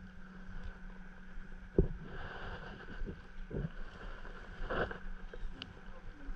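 Water sloshing against a plastic fishing kayak's hull under a steady low hum, with a sharp knock about two seconds in and a couple of softer knocks later.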